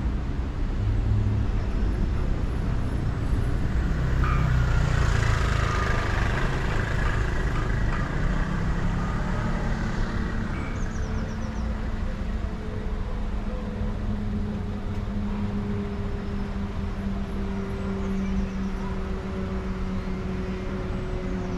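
Car driving on a road: engine and tyre rumble, with a louder rushing swell about four seconds in that fades by about eight seconds. From about twelve seconds a steady engine hum comes through, its pitch sinking slightly.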